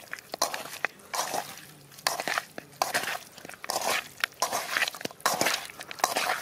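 A hand squishing and turning raw chicken pieces with sliced onion, green chillies and spice paste in a steel kadai: a string of squelches, roughly one every half to two-thirds of a second, with sharp clicks among them.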